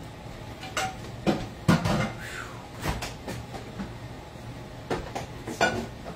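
Kitchen clatter: a run of irregular knocks and clinks, about eight in all, as cookware and utensils are handled and set down. The loudest knock comes a little under two seconds in.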